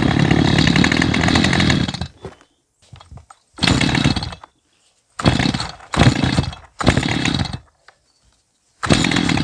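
Stihl MS211 chainsaw's two-stroke engine being pull-started: it runs for about two seconds and dies, then catches for under a second at a time on several more pulls, cutting out each time. It has plenty of compression, and the owner suspects a leak at the carburettor, crankshaft seals or crankcase.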